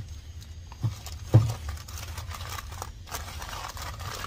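Packing paper and a plastic mailer rustling and crinkling as a parcel is unwrapped by hand, with two dull thumps about a second in over a steady low hum.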